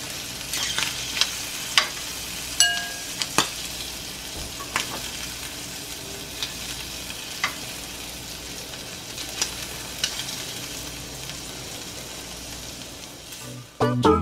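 Shrimp sizzling in butter in a frying pan, with sharp clicks of metal tongs against the pan and the glass bowl as the shrimp are lifted out. Music starts right at the end.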